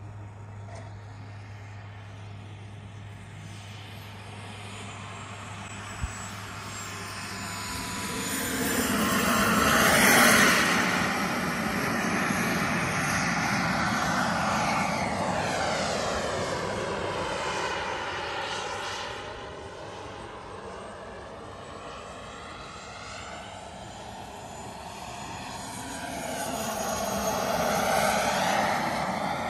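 Turbine-powered radio-controlled model jet flying low passes: its engine sound swells as it approaches, peaks about a third of the way through, fades away, and swells again near the end.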